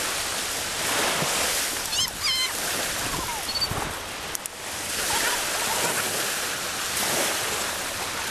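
North Sea surf washing onto a sandy beach: a steady rush of breaking waves that swells and eases, with a few faint high-pitched calls about two seconds in.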